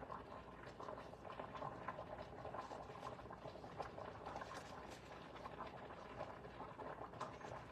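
A pot of rice boiling on the stove, giving a faint, steady bubbling made of many small pops.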